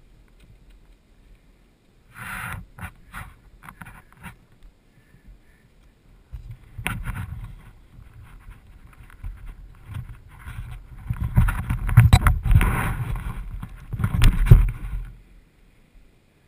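Wind rush and rattling on a helmet camera's microphone as an off-road bike rides down a dirt track. It builds into heavy knocks and scraping, loudest about twelve and fourteen and a half seconds in, then cuts off suddenly as the bike goes down and comes to rest.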